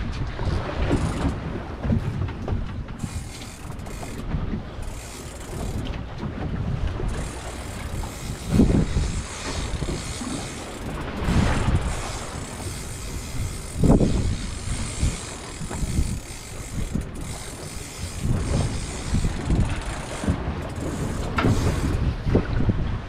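Wind buffeting the microphone over water splashing at a boat's stern, in gusts, the loudest about nine and fourteen seconds in. Under it, the mechanical clicking of a spinning fishing reel as a hooked fish is reeled in.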